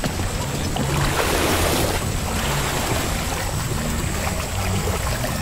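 Churning, splashing river water as a wildebeest herd crosses at a run, with a low steady drone underneath.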